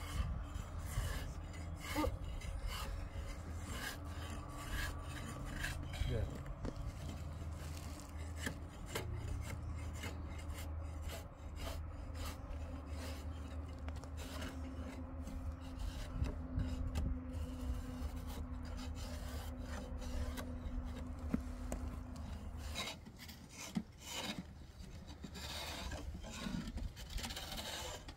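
Repeated rasping strokes of a hand tool working wood, over a steady low hum that stops about 23 seconds in.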